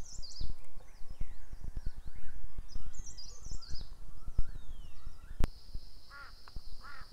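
Outdoor ambience of small birds chirping in quick falling runs over low, gusty rumbling on the microphone. About five seconds in an abrupt click brings in a steady high-pitched insect drone and repeated, harsher bird calls.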